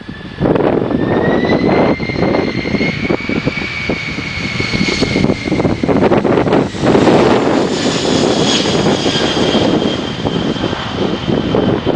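Boeing 767 jet engines running loud, their whine rising in pitch over the first two seconds and then holding steady, over a deep rumble. Wind buffets the microphone throughout.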